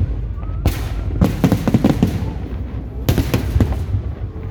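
Aerial fireworks bursting: a sharp bang, then a quick run of bangs and crackles, then two more bangs about three seconds in, over a low rumble.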